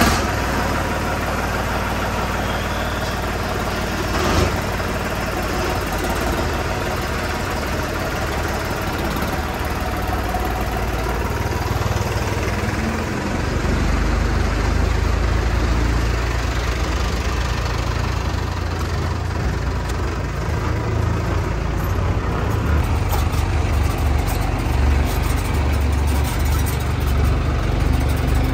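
Diesel tractor engine running steadily, its low rumble growing stronger about halfway through.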